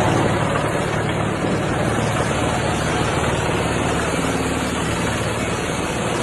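Industrial wood chipper machine running, a steady loud mechanical drone with a low hum underneath.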